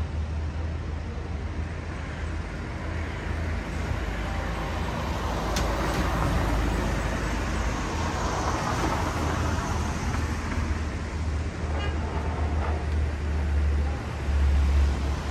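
City street traffic: a vehicle passes close by, its engine and tyre noise swelling and then fading over several seconds, over a steady low rumble. A single sharp click comes near the middle.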